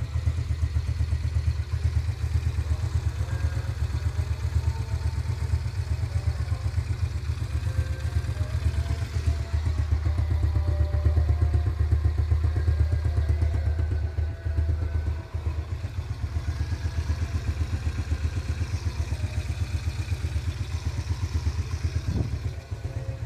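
Yamaha Vega ZR's single-cylinder four-stroke engine idling steadily after a rebuild with a new piston and connecting rod, running smooth with no knock.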